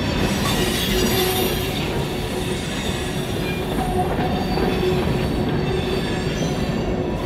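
Freight train rolling slowly around a curve: a steady rumble of wheels on rail, with a thin steady squeal of wheel flanges against the curved track.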